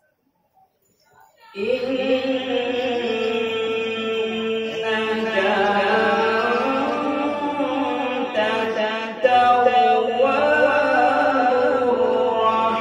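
A man reciting the Quran solo in the melodic qirat style, with long held, ornamented notes. It starts about a second and a half in, after near silence.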